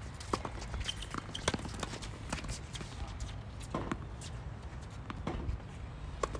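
Tennis rally on a hard court: sharp knocks of the ball off racket strings and court, irregularly spaced about a second apart, with players' footsteps.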